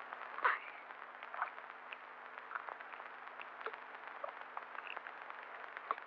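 Steady hiss with scattered clicks and crackles, the surface noise of an old film soundtrack; the sharpest crackle comes about half a second in.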